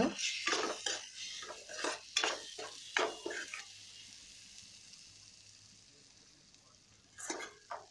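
Steel spatula stirring and scraping prawns and ground masala paste in a pan, over the sizzle of frying. There is a quick run of stirring strokes for the first few seconds, then the sizzle fades, and a couple more strokes come near the end.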